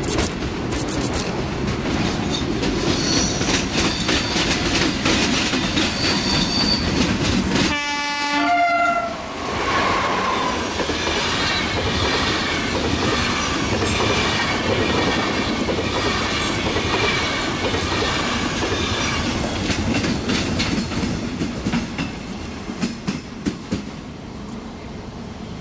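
Electric-hauled passenger train passing at speed: a rising rumble and rattle as the locomotive approaches, a short horn blast about eight seconds in as it goes by, then the coaches rumbling and clicking over rail joints. The sound fades away near the end.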